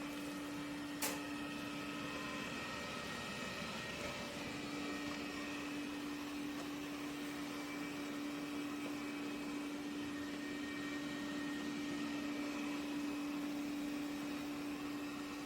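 A robot vacuum running with a steady motor hum and even airflow noise, with a single sharp click about a second in.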